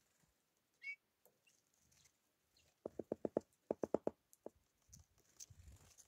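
Great spotted woodpecker pecking at food on a wooden platform feeder: two quick runs of taps, five or six each, about three and four seconds in. A brief high bird chirp about a second in.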